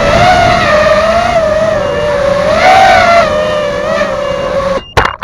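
FPV racing quadcopter motors and propellers whining, the pitch wavering up and down with the throttle, then cutting off abruptly near the end, followed by two sharp clicks and a short high beep.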